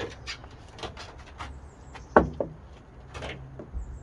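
Old rubber side seals being pulled and prised off a Mk3 Golf GTI's door: a run of short scrapes and rips, with one loud creak that falls in pitch about two seconds in.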